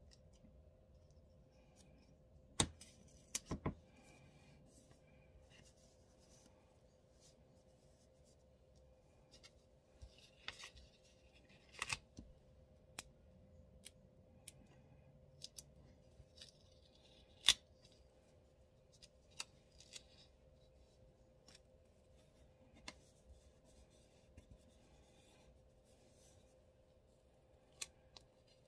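Hands handling paper stickers on planner pages: scattered light taps and clicks with short rustles of paper as sticker backing is peeled and stickers are pressed down.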